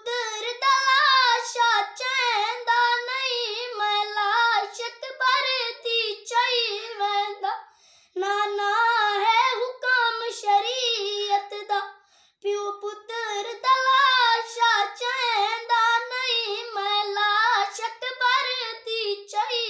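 A young boy singing unaccompanied in a high, wavering voice: a Saraiki lament (noha) for Hussain. The phrases break briefly twice, about eight and twelve seconds in.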